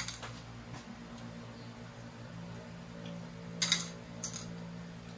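Steady low hum of a fan or appliance, with a click at the start and two short tabletop clatters about three and a half and four seconds in, as sugar apples and their seeds are handled on plates.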